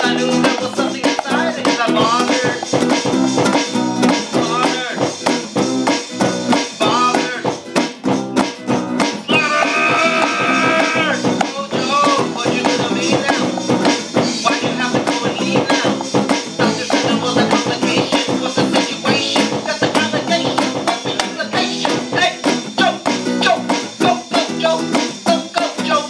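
Live improvised band music: a strummed guitar in a steady rhythm with a voice singing into a microphone, one long held note about ten seconds in.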